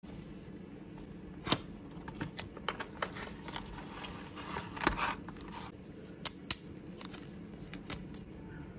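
Smartwatch packaging being handled and opened: cardboard and plastic rustling and scraping as the box tray is slid out and the watch taken from its holder, with scattered sharp clicks and taps, the loudest two close together past the middle.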